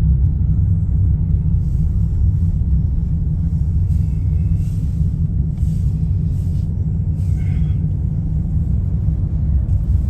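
Steady low rumble of a car driving on the road, heard from inside the cabin.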